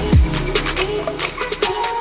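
Background electronic music with a beat; a deep bass note slides down in pitch just after the start, and the bass drops out near the end.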